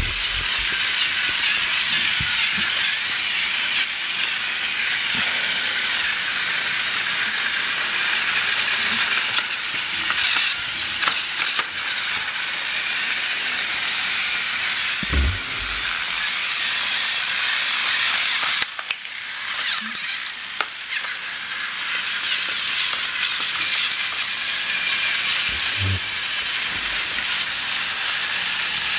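Battery-powered TrackMaster toy trains running on plastic track: the steady whirring and clatter of their small motors, gears and wheels. A few low knocks come in about halfway through and again near the end.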